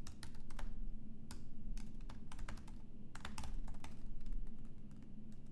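Typing on a computer keyboard: irregular runs of quick key clicks broken by short pauses, over a faint steady low hum.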